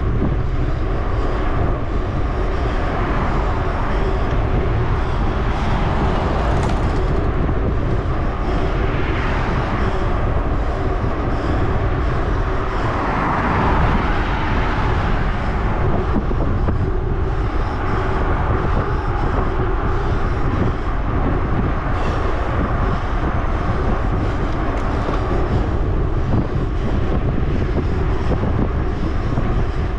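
Steady wind rush over the microphone and bicycle tyre hum on asphalt during a fast road ride. A car passing close swells up about halfway through and fades.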